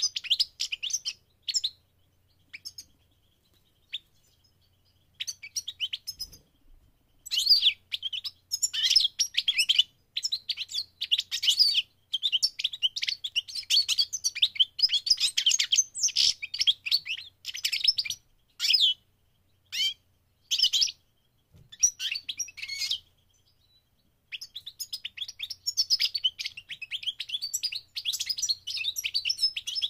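European goldfinch of the parva subspecies singing: rapid twittering phrases of high, quickly changing notes in bursts. It falls almost silent for a few seconds early on, then sings on with only a short break about three quarters through.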